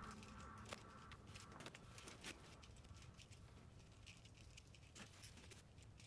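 Near silence with faint, irregular clicks of plastic Rubik's cubes being handled and turned.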